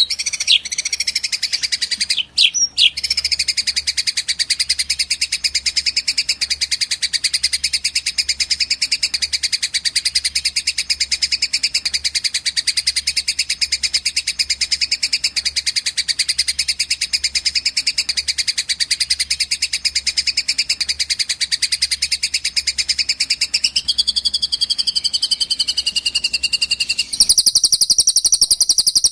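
Songbird recording of a Eurasian tree sparrow's fighting chatter joined with a long cililin trill: a fast, unbroken run of high chirps. About 27 s in, the pattern changes to a louder, higher trill.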